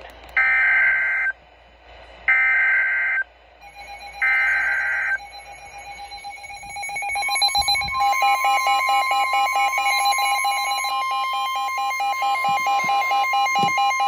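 Midland NOAA weather alert radio sounding a tornado warning. First come three one-second screeches of the digital SAME alert header, about a second apart. Then, from about seven seconds in, a steady warning tone just above 1 kHz sounds together with fast-pulsing alarm beeps.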